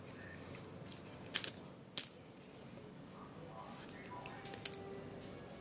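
Faint handling of a holographic trading card being slid into a plastic card sleeve: soft rustling with three short, sharp ticks spread through.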